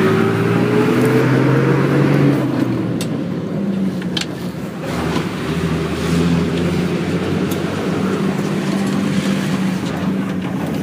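Bus engine running as the bus drives, heard from inside the cabin: a whine rises in pitch over the first two seconds as it accelerates, then settles into a steady drone. A few short clicks or rattles come through a few seconds in.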